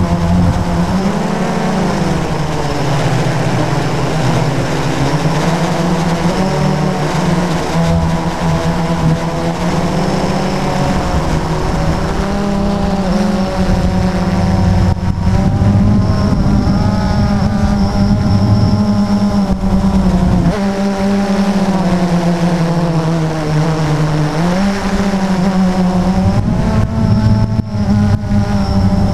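Model plane's motor and propeller droning close to an onboard camera, with a rushing wind noise. The pitch dips about two seconds in, then swings up and down with the throttle, rising sharply again near the end.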